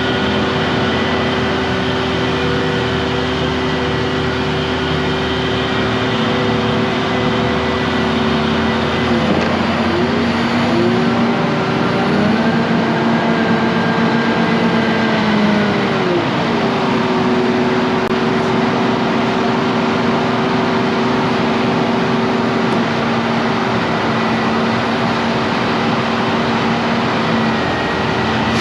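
Engine running with a steady hum over a loud rushing noise; its pitch rises about ten seconds in, holds, and drops back around sixteen seconds.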